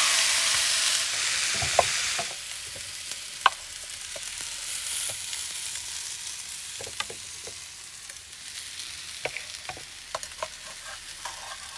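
Steak and vegetables sizzling in a frying pan. The sizzle is louder for about the first two seconds and then settles quieter, with occasional light clicks of a utensil against the pan.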